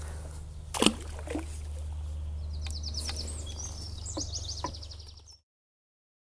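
Canal-side outdoor ambience: a songbird sings a rapid trilled song over a steady low hum, with a brief sharp knock about a second in. The sound cuts off suddenly after about five seconds.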